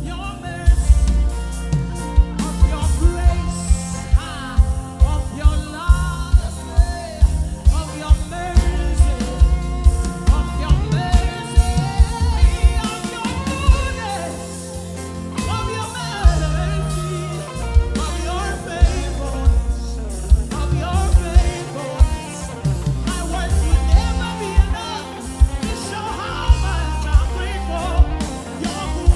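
Live gospel worship band playing, with a drum kit keeping a steady beat over bass and melodic instruments.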